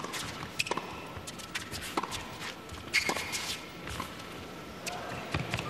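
Tennis rally on an indoor hard court: sharp racket strikes and ball bounces about once a second, the loudest about three seconds in, with players' footsteps on the court.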